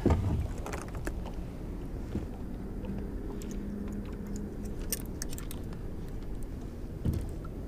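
Fishing tackle handled at the rod: a few light metallic clicks about five seconds in and a soft knock near the end, over a steady low rumble of wind and water around the boat.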